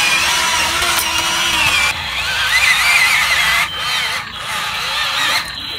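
Small electric motor and gearbox of a remote-control toy truck whining as it drives, its pitch wavering with speed and load.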